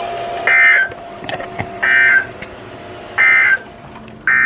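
Emergency Alert System SAME data tones from a broadcast alert: three short warbling bursts about 1.3 s apart, the end-of-message code that closes one severe thunderstorm warning. Near the end comes a longer burst, the first header burst of the next warning.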